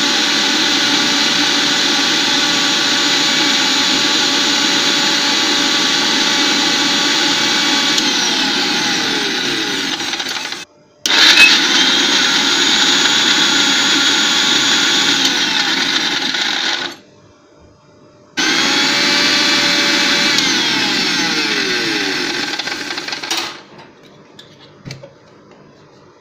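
A Just Mix kitchen mixer-grinder's motor running at high speed, grinding garlic, dried coconut and red chilli into a dry chutney. It runs in three goes, cutting out briefly about 11 seconds in and for about a second and a half near 17 seconds, then stops for good a little before the end.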